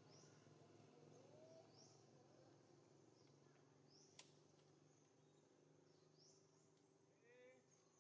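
Near silence: faint outdoor ambience with short high chirps repeating every second or two and a single sharp click about four seconds in.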